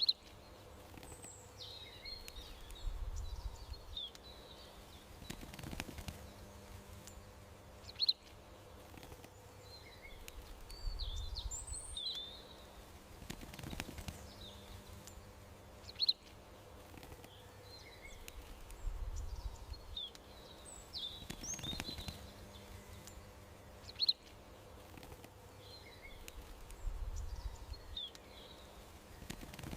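Small songbirds chirping and twittering, with one sharp call about every eight seconds in a pattern that repeats like a loop, over a faint steady hum.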